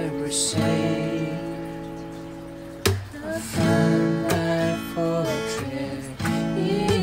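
Steel-string acoustic guitar being fingerpicked in slow, ringing arpeggios. The notes fade away, then a sharp new pluck comes just before three seconds in and the picking resumes.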